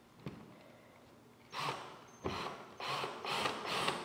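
Power drill driving a screw into a bamboo flooring panel on a wall, in a run of short trigger bursts that start about a second and a half in.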